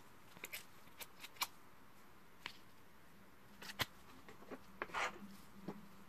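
Faint scattered scratches and clicks of gloved hands at work: sandpaper rubbed on the stripped end of an aluminium wire, and a plastic syringe being handled, with a few sharper ticks and a short scrape near the end.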